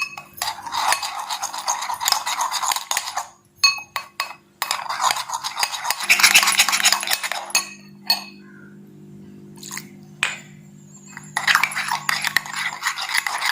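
A spoon scraping and clinking against a bowl, stirring a thick mix of toothpaste, glue and water for slime. It comes in three spells with short pauses between them.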